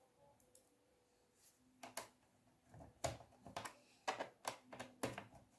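Light clicks and knocks of a screwdriver on a plastic laptop case as the bottom-case screws are driven in, an irregular series starting about two seconds in.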